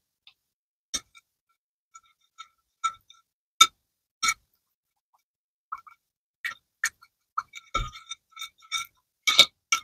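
A plastic spoon tapping and clinking against a glass bowl as it stirs liquid slime glue: irregular light ringing clicks, a few at first and coming quicker over the last four seconds.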